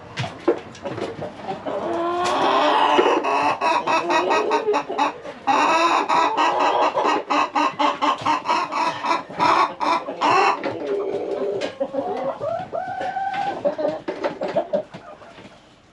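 A flock of chickens clucking and squawking, loudest through the middle, with many short sharp clicks among the calls.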